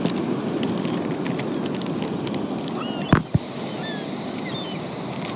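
Steady wind buffeting the microphone over beach surf noise, with a few faint short calls from gulls about three to four seconds in and a single sharp thump just after three seconds.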